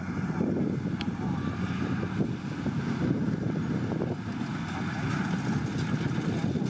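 Kubota DC70 Plus rice combine harvester running as it cuts through the crop: a steady diesel engine drone with a busy mechanical churn from the machine's working parts, and a brief click about a second in.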